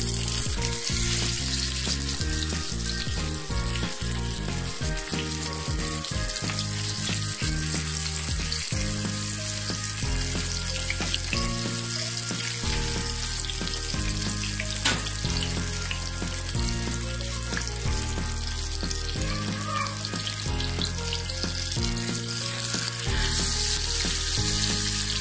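Marinated silver pomfret sizzling as it fries in hot oil in a pan, a steady hiss that grows louder near the end. Background music with low, stepping notes plays underneath.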